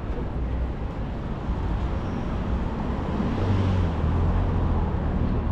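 City traffic noise: a motor vehicle passes close by, a low engine hum that swells to its loudest about three to four seconds in.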